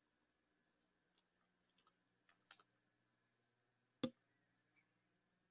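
Faint handling of glossy Panini Prizm trading cards over near silence: a brief sliding rustle about two and a half seconds in and one sharp click just after four seconds.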